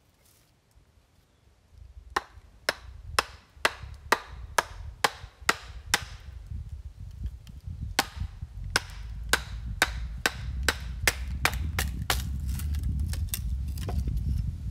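A wooden mallet hammering the back of an axe driven into a block of wood, splitting it: sharp knocks about two a second, starting about two seconds in, pausing briefly in the middle, then coming quicker. A low rumble builds underneath in the second half.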